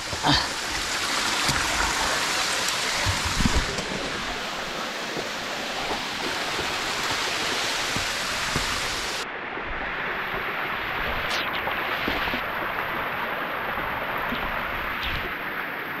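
Steady rush of cascading water from a mountain stream and waterfall. A little over halfway through, its high hiss drops away abruptly and the rush sounds duller.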